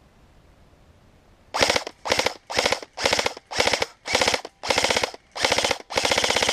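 Airsoft electric rifle firing nine short full-auto bursts in quick succession, starting about a second and a half in, each a fast rattle of shots, the last burst the longest.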